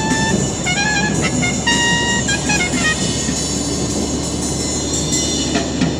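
Music with a short melody of held notes, over the steady rumble of a car in motion.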